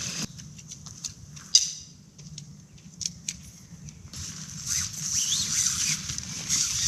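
Tent parts being handled during pitching: a few sharp clicks and knocks, the loudest about a second and a half in, then from about four seconds a steady crinkly rustle of nylon tent fabric being spread and pulled, with a brief squeak.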